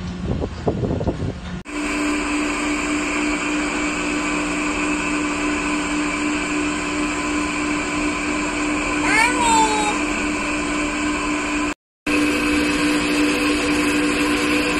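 Steady mechanical hum of a Ferris wheel gondola's air conditioner, heard from inside the cabin, starting suddenly about two seconds in after a moment of outdoor wind noise. A brief high gliding squeal breaks in about nine seconds in, and the sound drops out for a split second near the end.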